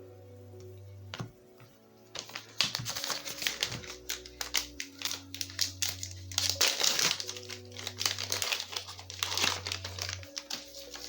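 Crinkling of a trading-card booster pack wrapper as it is handled and opened, in dense bursts from about two seconds in, over background music.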